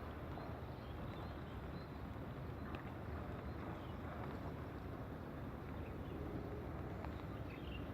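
Steady outdoor background noise with a low rumble and a few faint, short, high chirps.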